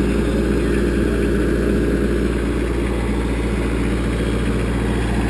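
New Holland Boomer compact tractor's diesel engine idling steadily.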